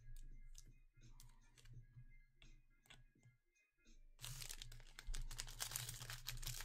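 Light plastic clicks and taps of trading cards and a rigid plastic top loader being handled. From about four seconds in comes a steady crinkling and tearing of a Panini Prizm foil card pack wrapper being opened.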